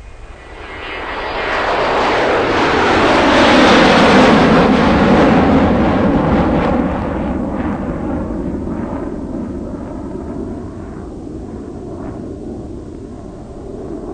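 Diesel engines of the tractor and backhoe loader running as a steady low rumble. Over it, a loud rushing noise builds to a peak about four seconds in and then slowly fades.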